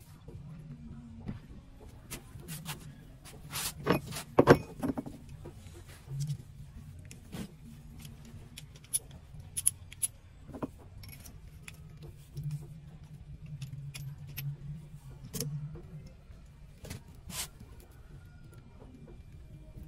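Metal hand tools and engine parts clinking and knocking in irregular, separate strikes, loudest a few seconds in, over a low steady hum.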